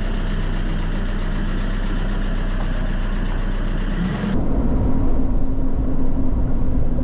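A small pickup truck's engine idling steadily. After a cut about four seconds in, it changes to the louder engine and road noise of a vehicle driving along, heard from inside.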